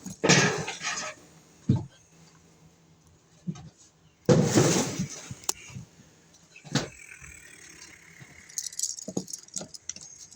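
Handling noises: a few short rustling bursts and several sharp metallic clinks and rattles of small metal parts or tools being moved.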